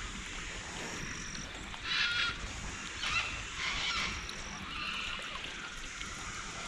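A bird calling several times, short calls about two, three, four and five seconds in, over a steady outdoor hiss.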